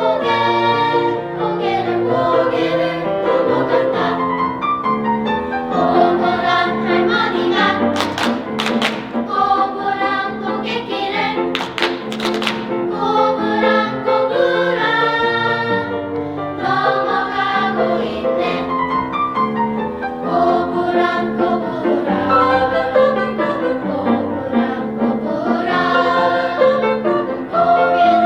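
A choir singing in several parts, with a few brief sharp clicks about eight and twelve seconds in.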